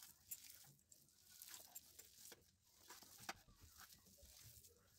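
Faint, irregular rustling and soft taps of hands mixing dry wheat flour with chopped fenugreek leaves in a steel plate.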